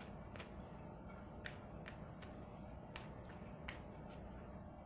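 Tarot cards being shuffled by hand: a handful of faint, irregular clicks as cards slap against the deck, over a faint steady low hum.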